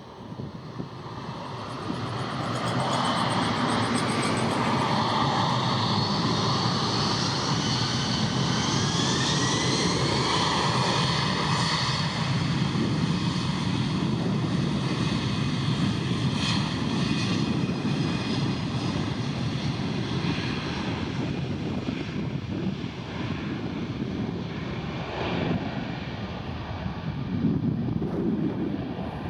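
Aeroplane engines passing close: a loud steady rush that builds over the first couple of seconds, with a thin whine rising in pitch about ten seconds in.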